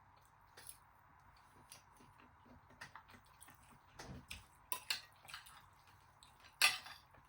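Soft, scattered clicks and clinks of cutlery against dishes during eating, with one louder clink about two-thirds of the way through.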